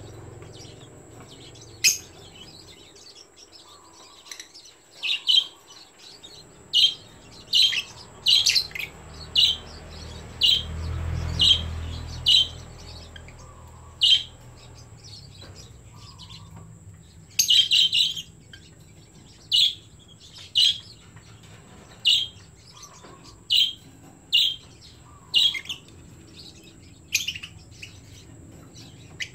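Lovebirds giving short, shrill chirps, singly and in quick pairs, scattered irregularly throughout. A low rumble swells and fades around the middle.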